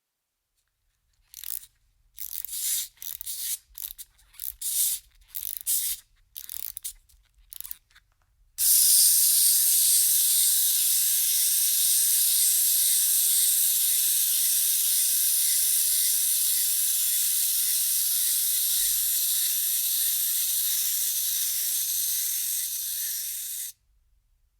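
Wind-up toy's clockwork: first a run of short, irregular ratcheting strokes as it is wound, then the spring motor runs with a steady high whir for about fifteen seconds, easing slightly before it stops abruptly.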